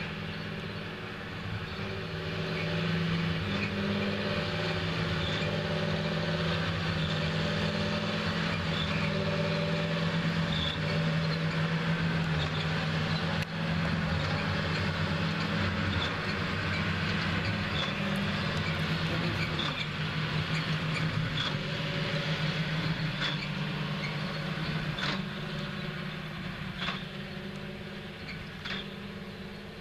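Tractor engine running steadily under load while pulling a large square baler through hay, with the baler's machinery clattering along. It grows louder about two seconds in and eases off toward the end as the rig passes and moves away.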